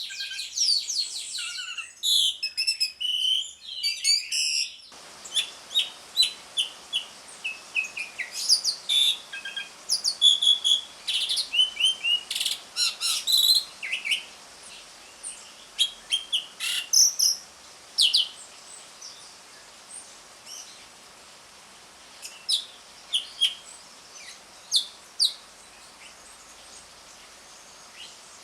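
Pied starling (jalak suren) chattering in quick, high chirps and whistles. A dense run of calls opens it, then scattered short calls with pauses between. A faint steady hiss sits behind from about five seconds in.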